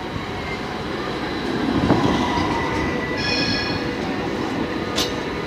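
Tram pulling into the stop and rolling past close by, its wheels running on the rails, loudest about two seconds in. A brief high-pitched squeal about three seconds in, and two sharp clicks near the end.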